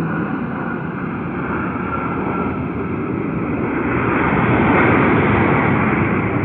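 Airplane engines passing close by, the noise swelling to a peak a little past the middle and starting to ease off, with a faint whine that drops slightly in pitch.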